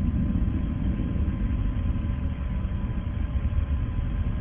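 Steady low rumble of the Soyuz rocket's first-stage engines and boosters under full thrust, heard inside the crew capsule, with a faint steady high tone running through it.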